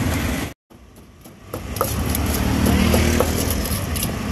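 Wooden pestle knocking in a mortar as green papaya salad is pounded: several short, irregular knocks over a steady hum of street traffic. The sound drops out briefly about half a second in.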